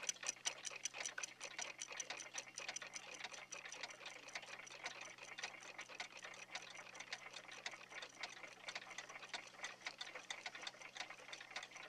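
Many mechanical clocks ticking at once, out of step with one another, making a dense, uneven run of several ticks a second.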